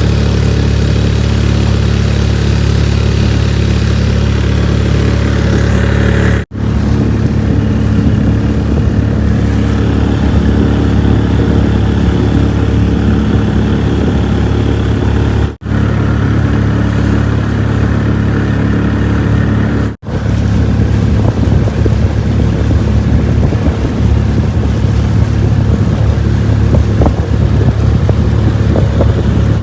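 Vehicle engine and road noise while driving: a loud, steady low drone, broken three times by a sudden split-second gap where the footage is cut.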